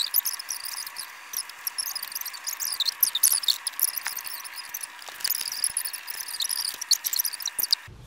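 High-pitched, squeaky chattering of a child's voice reading aloud, sped up like fast-forwarded footage so the words cannot be made out, over a thin hiss. It starts and cuts off abruptly.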